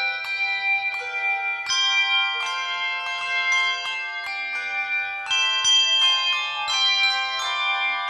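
Handbell choir ringing: chords of bronze handbells struck about once or twice a second, each ringing on and overlapping the next.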